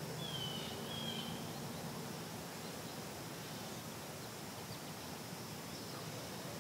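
Outdoor summer ambience: a steady, faint, high insect hum, with a bird's brief two-part call in the first second or so.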